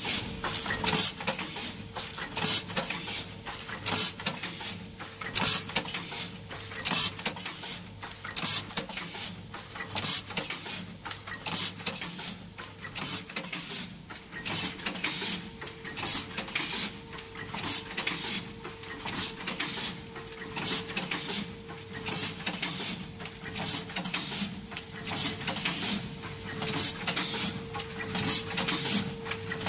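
Acepack DS-180S horizontal form-fill-seal machine running as it forms bottle-shaped stand-up pouches from film: sharp mechanical clacks repeating roughly twice a second over a steady hum.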